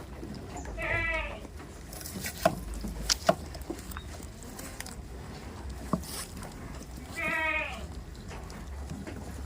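Goat bleating twice, a wavering call about a second in and another near the end, with a few sharp clicks or knocks in between.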